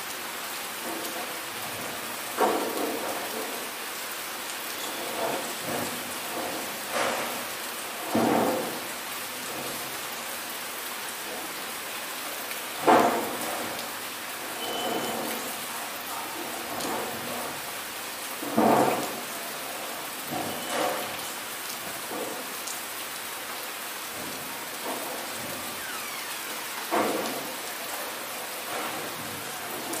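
Steady rain falling on roofs and trees, with a short, louder sound breaking through every few seconds, about eight times; the loudest comes near the middle.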